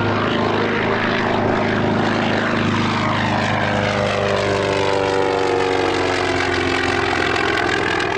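Grumman FM-2 Wildcat's Wright R-1820 nine-cylinder radial engine and propeller in a low flyby. A steady, loud drone whose pitch starts falling about halfway through as the plane passes.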